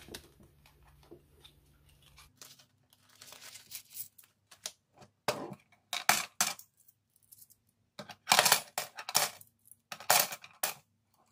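Coins being handled and dropped into a small savings box: soft rustling first, then a run of short clinks and clatters in the second half.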